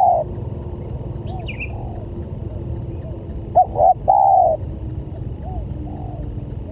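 Spotted dove (tekukur) cooing. Its phrase of two short coos and a longer drawn-out coo comes once just at the start and again about halfway through, with fainter coos between. A small bird chirps briefly about a second and a half in, over a steady low hum.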